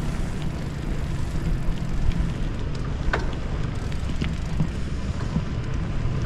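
Wind buffeting the microphone over the rumble of bicycle tyres rolling on a concrete road. A few light clicks or rattles come through, one sharper about three seconds in.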